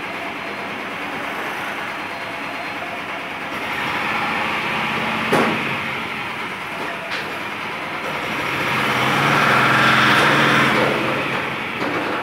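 Small pickup truck's engine running as the truck creeps along the deck of a car-carrier trailer. It grows louder for a few seconds near the end, and there are two sharp knocks.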